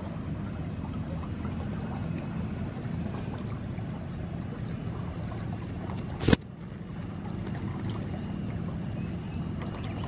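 Steady low outdoor background rumble, with a single sharp knock about six seconds in.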